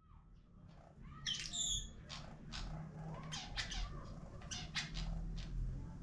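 Violet-crowned hummingbird calling: a squeaky, warbling high note about a second in, followed by a series of short, sharp high chips.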